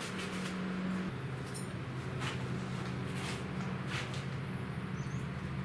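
A steady low machine hum that steps down slightly in pitch about a second in, with a few faint clicks and scrapes of small parts being handled.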